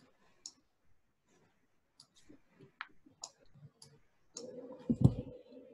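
Faint, scattered computer mouse clicks as windows are opened and dragged on screen. Near the end a low thump and a steady low tone come in.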